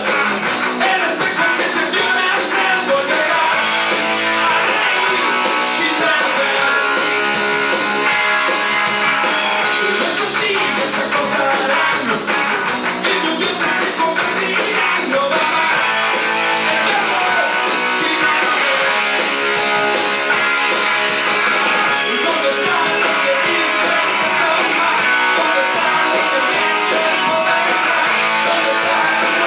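Rock music with guitars playing, loud and steady throughout.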